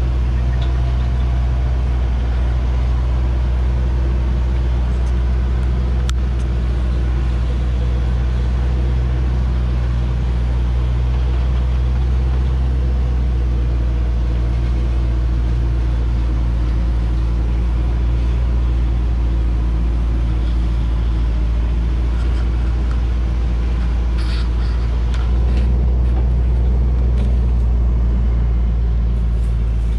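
Hoa Mai light truck's diesel engine running steadily at low revs under a heavy load of acacia logs, a deep, even engine note that grows a little louder about 25 seconds in. A few faint clicks come near the end.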